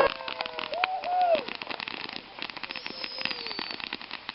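Fireworks crackling: a dense, rapid run of small sharp pops, loudest for the first second and a half and then thinning out.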